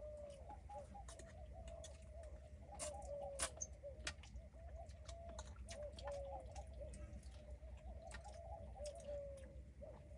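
Birds calling faintly and without pause: many short, low, overlapping calls, with scattered sharp clicks and a low rumble underneath.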